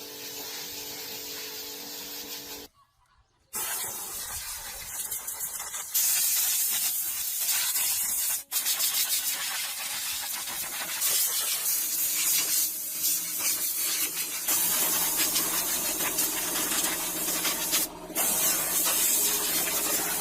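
Hissing spray noise in stretches, stopping briefly about three seconds in and getting louder from about six seconds in.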